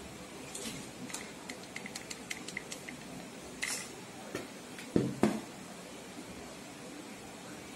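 Small light clicks and taps of craft materials being handled on a tabletop, then two louder knocks on the table about five seconds in, over a steady faint hiss.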